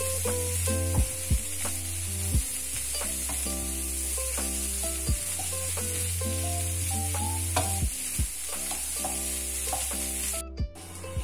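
String beans, minced pork and egg sizzling in a nonstick wok while a wooden spatula stirs and tosses them. A steady frying hiss runs under several sharp knocks of the spatula against the pan.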